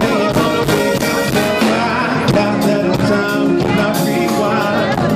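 Live R&B band music with a steady beat, playing the passage between the singer's lines.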